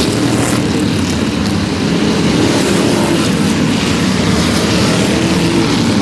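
Racing vehicle engines running on a track, a loud steady drone with no letup.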